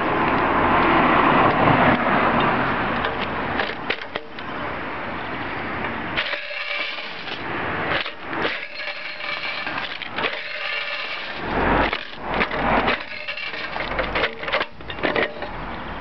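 Metal clicking, knocking and rattling as a Duncan parking-meter coin canister is pushed into and worked in the receptacle of a coin-collection cart, some knocks ringing. A loud rushing noise fills the first few seconds.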